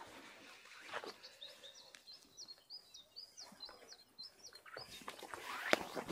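A songbird singing a quick run of about nine high, repeated notes lasting about two seconds, starting about a second in. Under it, footsteps swishing through dry grass and brush, louder near the end with a sharp snap.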